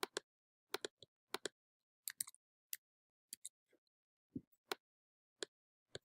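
Computer mouse clicks: about seventeen short, sharp clicks at an uneven pace, several in quick pairs like double-clicks.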